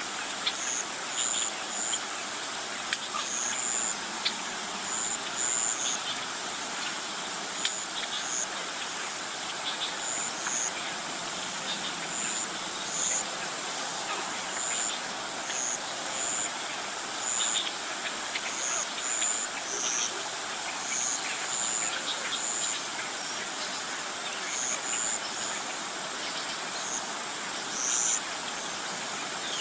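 Outdoor nature ambience of insects and birds: short high chirps repeating irregularly, about one a second, over a steady hiss.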